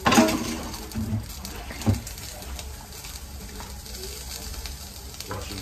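A cooking spoon stirring in a metal stockpot on the stove, knocking against the pot sharply near the start and again about two seconds in.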